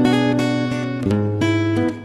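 Background music: an acoustic guitar playing sustained chords, changing chord about halfway through.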